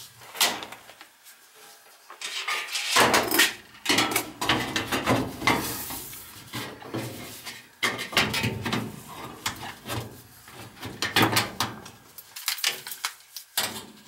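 Sheet-metal front access panel of a Goodman gas furnace being handled and fitted back onto the cabinet: repeated metallic rattles, scrapes and knocks, starting about three seconds in.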